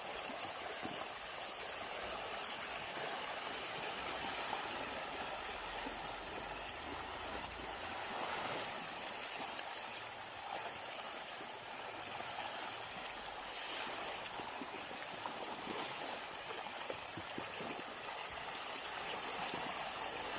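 Steady rushing noise like flowing water, even throughout, with a few brief slightly louder moments.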